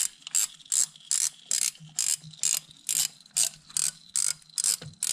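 Socket ratchet clicking steadily, about two to three clicks a second, as a drain plug under a Yamaha Nytro snowmobile engine is backed off.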